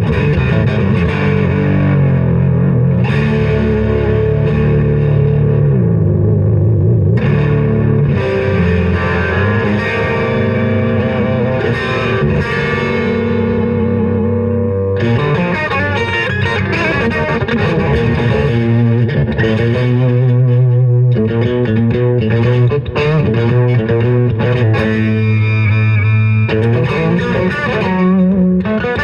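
Electric guitar fitted with a Guyker tremolo bridge, played through distortion and effects, with sustained notes whose pitch wavers and bends from tremolo-bar use. This is playing to test whether the bridge and locking tuners hold the tuning.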